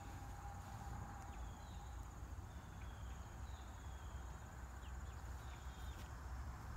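Faint dabbing of a paint-loaded sponge on a fabric bag, soft pats with a few small squeaks, over a low steady hum.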